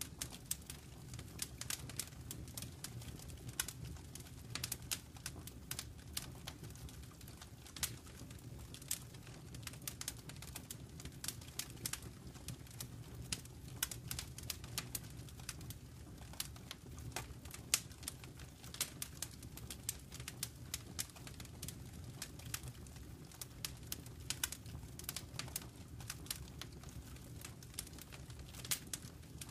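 Dense, irregular crackling clicks over a low steady hum, like static or surface noise on a poor audio line.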